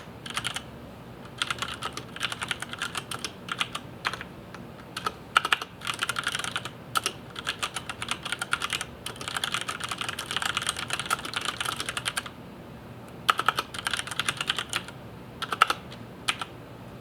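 Typing on a Filco Majestouch 2 Ninja mechanical keyboard with Cherry MX Brown switches: fast runs of key strikes broken by short pauses, with a few louder single strikes, stopping shortly before the end.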